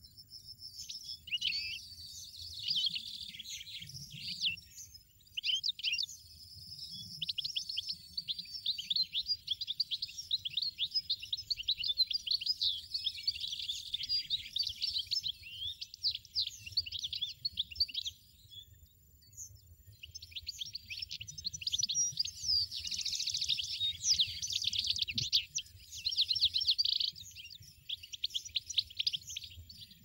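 European goldfinches chirping at the nest: fast, high twittering in two long runs, with a short break about two-thirds of the way through.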